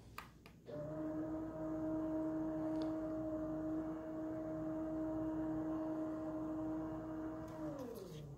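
Solo Pro motorized projector screen retracting: a couple of clicks, then its roller motor runs with a steady two-tone hum. Near the end the hum falls in pitch and stops as the screen reaches its fully rolled-up position.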